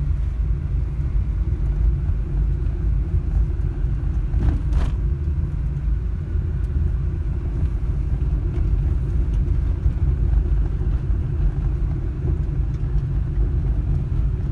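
Car cabin noise while driving on an unpaved dirt road: a steady low rumble of tyres and running gear. There is one brief sharper noise about four and a half seconds in.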